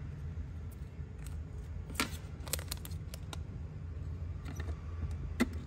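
A few scattered small clicks and taps from a Zippo lighter and its box being handled, over a steady low hum.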